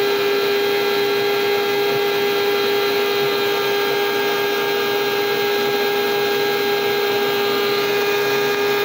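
Electric meat grinder's motor running steadily with an even hum, mincing fireweed leaves.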